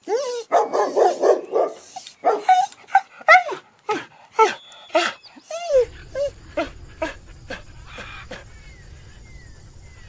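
Border collie and German shepherd play-fighting, a rapid run of short barks and yips with a rougher growl-like stretch near the start. The barking thins out after about six seconds.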